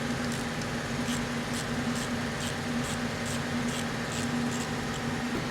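Steady mechanical hum with a constant low tone, with light ticks about twice a second.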